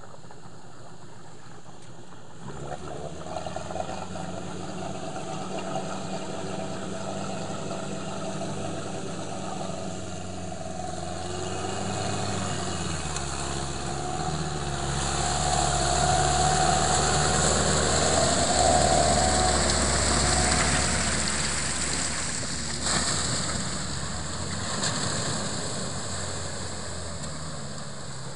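Volvo Bv202 tracked amphibious vehicle's engine running as it drives through shallow flood water. The engine note comes in suddenly about two seconds in and shifts about halfway. It grows loudest with churning water as the vehicle passes close, then fades as it drives away.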